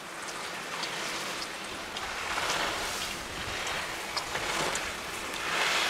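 Slalom skis carving and scraping on hard-packed snow: a hiss that swells with each turn, about every second and a half, with a few faint clicks.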